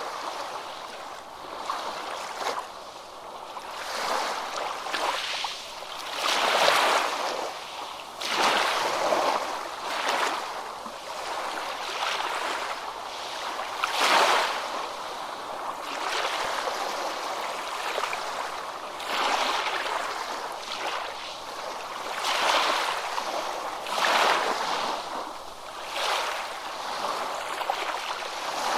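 Ocean waves breaking and washing in, a rushing hiss that swells and falls away every two to three seconds, with rippling water between the breaks.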